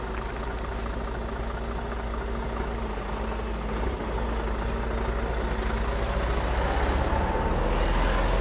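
Mercedes-Benz semi-truck's diesel engine running low as the tractor-trailer rolls slowly away, getting gradually louder, with a faint rising whine in the last couple of seconds as it gathers speed.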